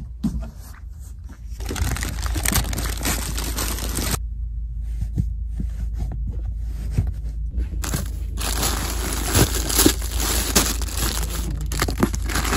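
Clear plastic garment wrapping crinkling and rustling as stock is pulled from cardboard boxes. It comes in two stretches, with a quieter pause of scattered light clicks in the middle.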